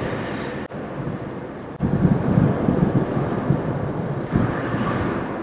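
Wind buffeting the microphone: a steady rumbling hiss that grows louder about two seconds in.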